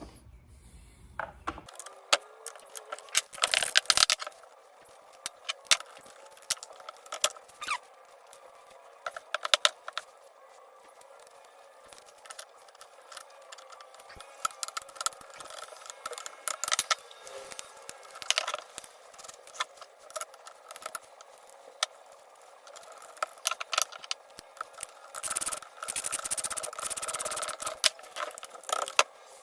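Scattered clicks, rattles and short scrapes of hand tools and plastic and metal parts as a cover is taken off a Husqvarna 136 chainsaw to get at its chain brake.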